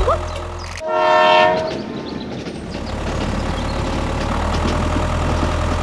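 A single horn blast lasting about a second, starting just under a second in, followed by a steady hum.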